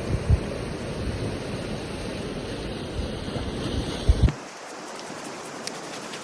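Ocean surf with wind buffeting the microphone in low gusty thumps, cut off abruptly about four seconds in by a quieter steady hiss.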